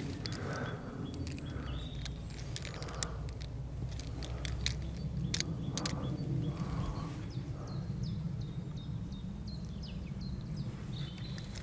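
Birds singing and calling, many short high chirps repeated throughout, over a steady low rumble, with a few sharp clicks.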